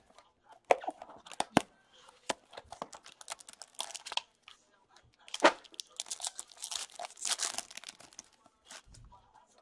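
Cardboard box of hockey cards being opened and its foil wrapper torn open and crinkled. A string of sharp clicks and rustles, with denser crinkling from about six to eight seconds in.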